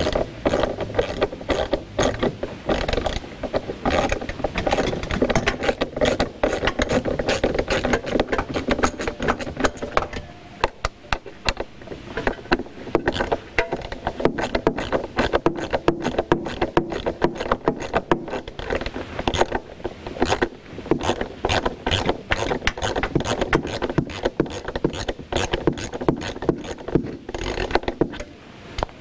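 Hand ratchet clicking in rapid runs while the bolts holding a hot tub jet pump down are undone.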